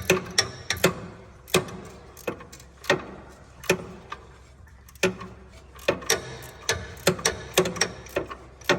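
Ratchet clicking in short, irregular sharp clicks, about one or two a second and sometimes in quick pairs, as a 15/16 socket snugs a replacement engine block heater into the block-plug hole of a Ford 3.5L V6.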